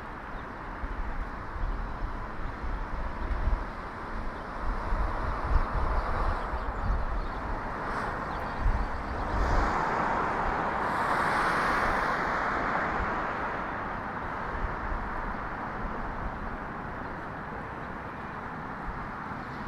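Street ambience heard from a moving bicycle: gusts of low wind rumble on the microphone in the first half, then a car passing close by, its tyre and engine noise swelling and fading about halfway through.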